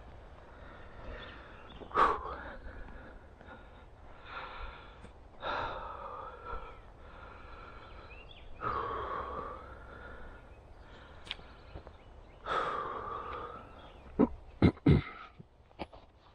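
A man breathing hard, with several long sighing exhales. A few sharp knocks come near the end.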